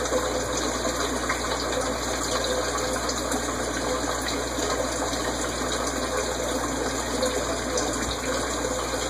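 Aquarium pump and moving water: a steady rushing noise with a low hum underneath.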